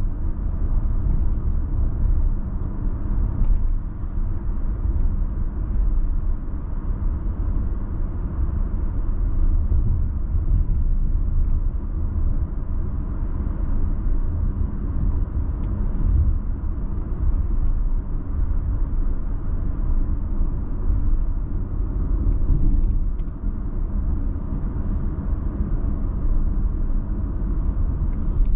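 Steady road rumble from a Mazda car being driven, the tyre and engine noise heard from inside the cabin.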